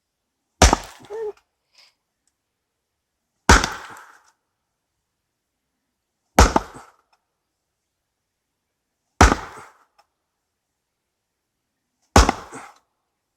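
Axe splitting firewood: five sharp chops into the wood, evenly about three seconds apart, each dying away within about half a second.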